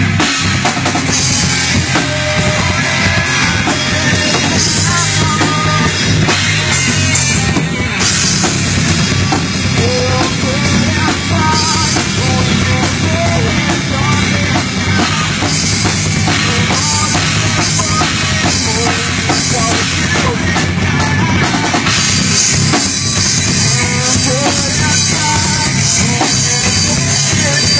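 Rock band playing live: drum kit and electric guitars together, steady and loud throughout.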